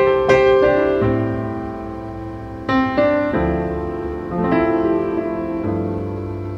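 Background piano music: single notes and chords struck every second or so and left to fade.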